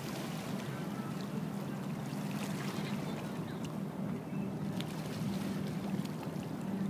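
A boat's engine drones steadily and low under a rush of wind and water noise.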